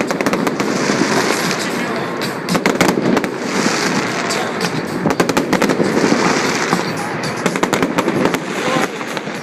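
Fireworks crackling in dense runs of rapid pops, with music playing under them.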